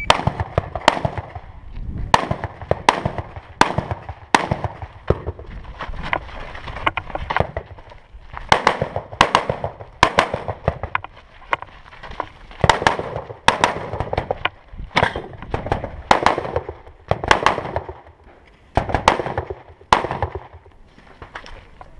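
Rifle fire on a timed course of fire: about thirty sharp shots, some in quick runs about half a second apart and others separated by pauses of a second or more.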